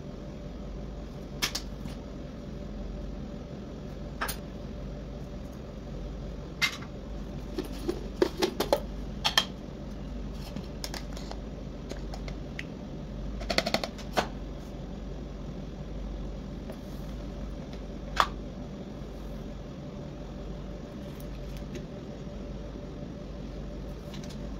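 Scattered sharp clicks and taps of kitchen utensils, a metal spoon scraping and knocking in a plastic food-chopper bowl, with quick runs of taps twice in the middle. A steady low hum sits under them.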